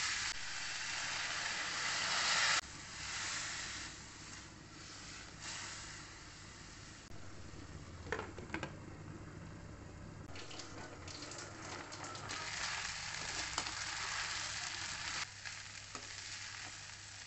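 Elephant foot yam cubes sizzling in a steel kadai as they are stirred with a spatula. The sizzle cuts off sharply about two and a half seconds in and runs quieter. A brief clatter about eight seconds in comes as the glass lid is set on the pan. The sizzling grows louder again later.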